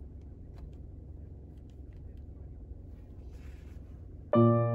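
Steady low outdoor rumble with a few faint clicks and a brief rustle. About four seconds in, electric piano music starts suddenly with a loud chord.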